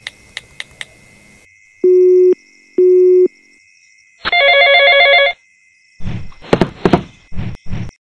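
Telephone call sounds: a few clicks, then two half-second beeps of a ringback tone, then a phone ringtone about a second long. A run of knocks follows near the end.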